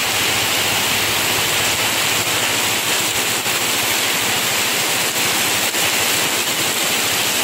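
Heavy tropical rain pouring down steadily onto a flooded street and pavement, a dense even rush of water with no break.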